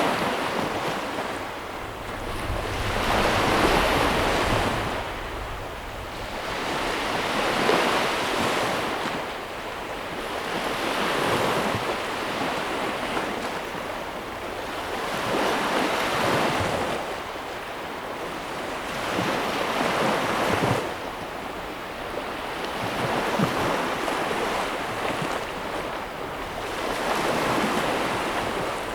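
Ocean waves washing in and breaking, the surf swelling and receding in slow surges about every four seconds.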